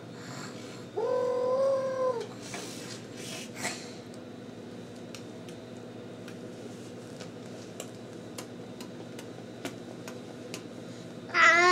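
A baby boy vocalizing: one held, level 'aah' call about a second in, lasting about a second and dropping slightly at its end. After it come faint breaths and small taps, then a louder, wavering babble near the end.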